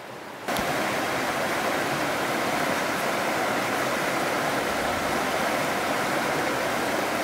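Shallow rocky creek running over stones and small riffles: a steady, even rush of water that comes in suddenly about half a second in.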